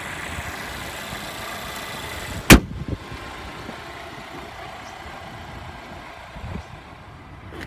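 Hood of a 2016 Volvo XC90 T6 slammed shut about two and a half seconds in: one sharp bang over the steady hum of the idling 2-litre supercharged and turbocharged four-cylinder engine, which is a little quieter once the hood is down.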